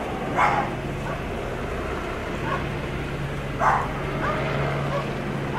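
Police dog barking: two loud barks about three seconds apart, with a few fainter yips between, over the steady low hum of idling vehicles.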